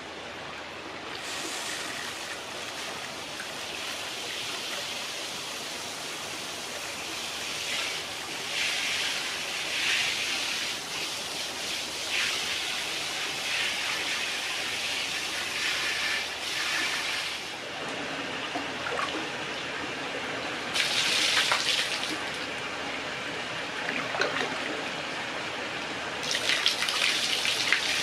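Water from a hand shower on an outdoor tap spraying at strong pressure and splashing onto wet stone, starting about a second in once the tap is turned on. The splashing swells louder in spells, loudest near the end.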